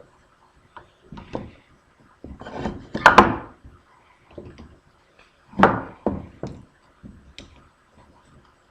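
Wood and tools being handled on a table saw: a string of separate knocks and thunks, the loudest about three seconds in and again a few seconds later.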